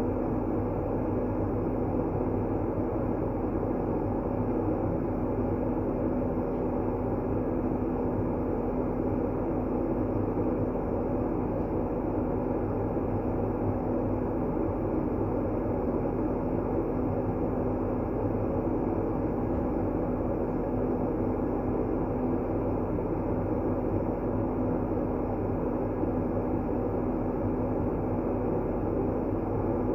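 Steady, unchanging rushing noise played as a sleep aid, deep rather than hissy, with a faint steady hum under it.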